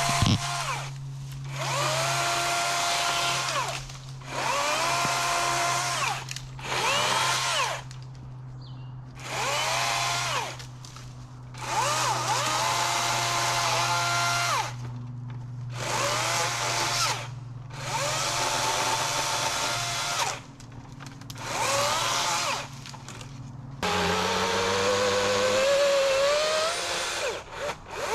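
Chainsaw cutting through fallen trees, revved in repeated bursts of one to two seconds with short pauses between cuts, its whine rising at the start of each burst.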